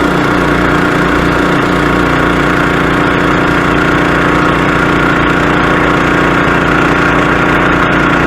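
Engine-driven water pump running steadily at a constant speed while it fills the AquaDam with water.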